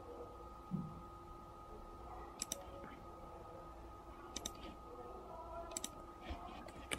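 Computer mouse clicking four times, each a quick press-and-release pair, spread a second or two apart, over a faint steady electrical hum.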